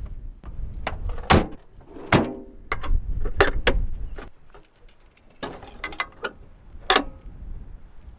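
Doors and latches on a Toyota LandCruiser troop carrier being shut: about ten separate sharp clunks and clicks, some with a short metallic ring, over a low rumble in the first half.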